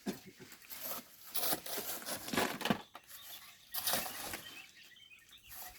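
Volcanic sand and gravel scraping and crunching under hand tools, in a handful of separate strokes about a second apart.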